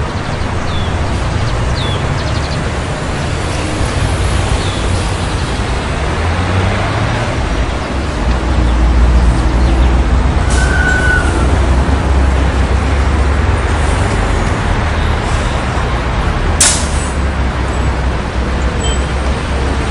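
City street traffic: a continuous rumble of engines and tyres, swelling as a heavy vehicle passes about eight to twelve seconds in. A short sharp hiss cuts through about three-quarters of the way in.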